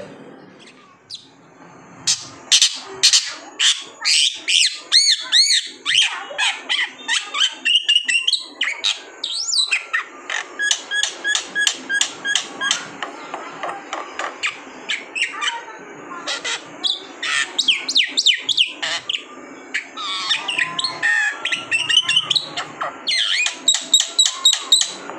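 Black-winged myna (jalak putih) singing a long, varied song of rapid sharp clicks and chattering notes mixed with whistled glides, starting about two seconds in.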